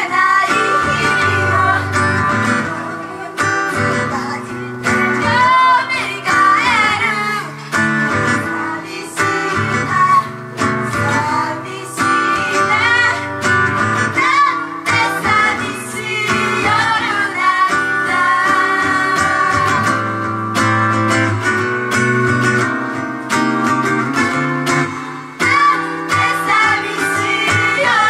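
Live song performance: female vocals sung over guitar-led band music, played loud through the venue's PA.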